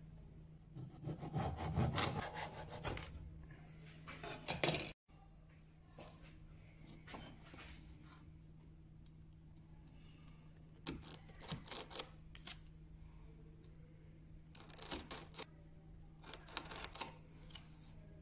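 A Japanese handsaw cutting through a thin strip of timber for the first few seconds. After a break, a hand-pushed chisel pares into the wood in several short bursts of slicing and scraping.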